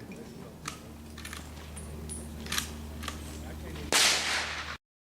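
Mossberg pump-action shotgun firing a slug once about four seconds in: a sudden loud blast with a short echo tail that cuts off abruptly. Before it come a few faint clicks.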